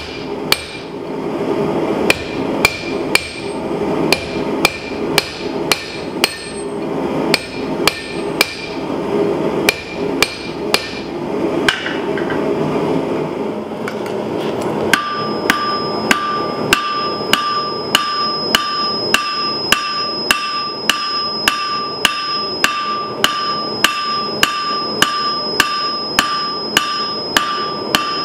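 Blacksmith's hand hammer striking red-hot steel on an anvil, about two blows a second, over a steady rushing noise. About 15 seconds in the rushing stops and the blows turn even and quicker, each leaving the anvil ringing with a clear high tone.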